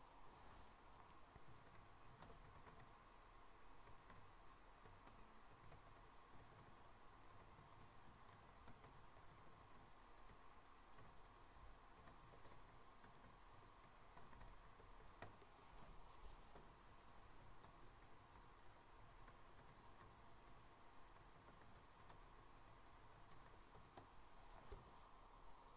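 Near silence: faint room tone with scattered, irregular clicks of computer keyboard keys being typed.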